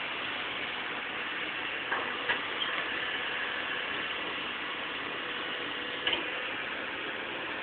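Hitachi 210 excavator working: a steady mechanical clatter from the machine, with a few sharp metallic knocks about two seconds in and again about six seconds in.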